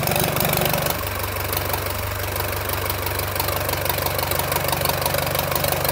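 Deutz inline four-cylinder diesel engine running, dropping to a lower, steady speed about a second in, with water gushing and splashing from a hose outlet at the front of the engine.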